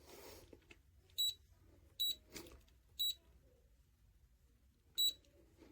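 Kavey 2.0 Cub safe's touch-screen keypad beeping as keys are pressed: four short, high, single-pitched beeps at uneven spacing, with a faint tap among them.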